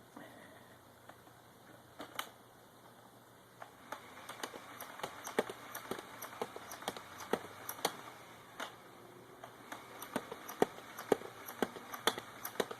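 Buzz Bee Ultra-tek Cyclonic motorized foam dart blaster firing on full auto. A few scattered clicks, then from about four seconds in a rapid run of sharp clicks, about three to four a second, with a short lull partway through before firing picks up again.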